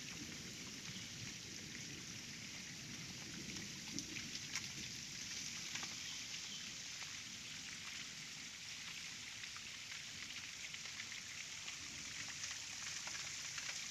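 Steady rain falling on wet ground and foliage, with scattered sharper drop ticks.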